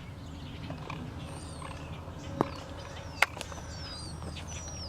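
Outdoor birdsong: a series of high whistled notes, each sliding downward, repeated about twice a second through the second half, over a low steady rumble. Two sharp clicks sound about two and a half and three seconds in.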